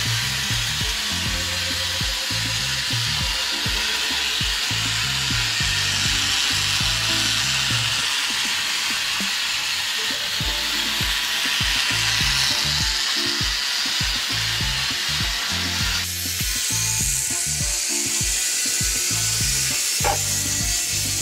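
Small toy train motors whirring steadily as the wheels roll on cardboard track, under background music with a stepping bass line. The whirring shifts higher about sixteen seconds in, and there is a single click near the end.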